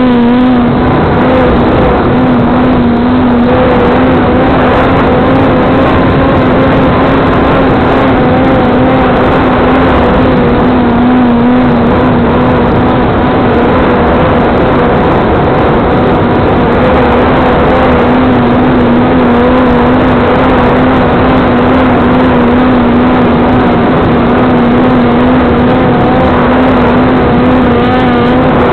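Motor and propeller of an RC-flown Lidl throw glider running at a steady, slightly wavering pitch over loud wind rush, heard from the aircraft's onboard camera.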